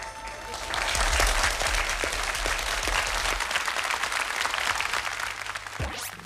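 Audience applauding as the song's last held note fades, with the applause at full strength from about a second in. The applause ends near the end of the clip in a short falling swoosh.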